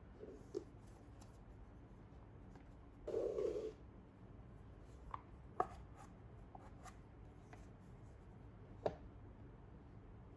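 Light handling sounds: scattered soft taps and clicks, with one brief rubbing scrape about three seconds in.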